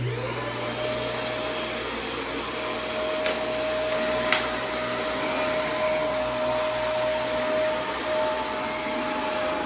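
Dyson DC24 upright vacuum cleaner switched on: the motor spins up within half a second to a steady whine over a rush of air. Two short clicks come about three and four seconds in.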